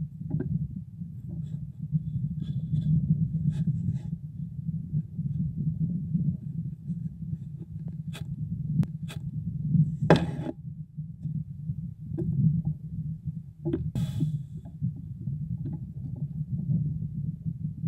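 A steady low rumble with scattered knocks and scrapes as a long-tailed goral's fur brushes and bumps against the trail camera. The loudest scrape comes about ten seconds in, another about fourteen seconds in.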